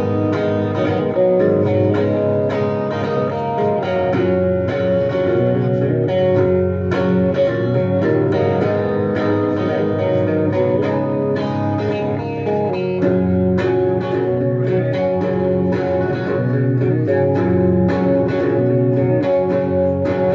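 Live guitar intro: strummed guitar chords played steadily at a rock song's opening, with no singing yet.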